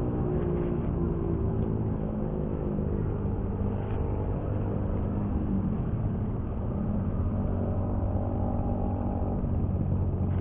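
Steady rumble of road traffic on a toll road, with the hum of several vehicle engines drifting slowly in pitch as vehicles pass.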